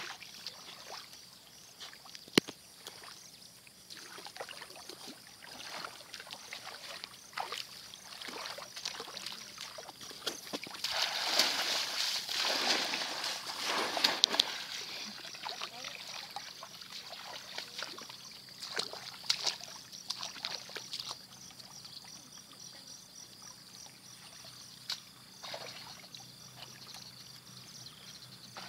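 Shallow water splashing and sloshing as a bamboo plunge basket is pushed down into a flooded field and people wade, in many short splashes with a louder bout of splashing a little before the middle.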